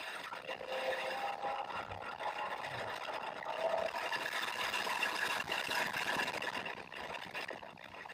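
In-cabin sound of a car at racing speed on a track, engine and road noise together, recorded so loud that the action camera's microphones distort it: the audio is blown out. It is loudest in the middle, as the car accelerates out of a corner onto a straight.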